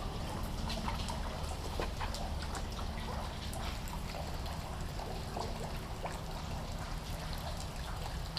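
Rain falling steadily, with many irregular drop ticks over a low rumble.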